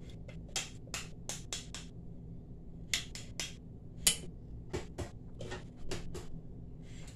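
An irregular series of short, sharp light clicks, some coming in quick runs of three or four, over a faint steady low hum.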